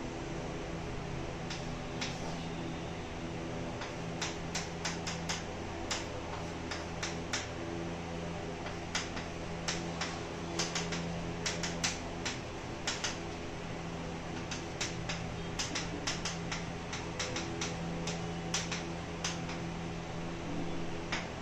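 Chalk writing on a chalkboard: an irregular run of sharp taps and clicks as strokes and symbols are written, several a second in bursts, over a steady low hum.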